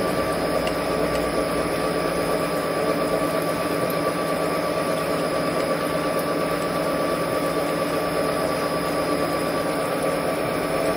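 Metal lathe running while a drill bit in the tailstock chuck bores into the spinning bar stock: a steady mechanical hum of motor and gearing with several constant tones. It cuts off suddenly right at the end as the lathe is switched off.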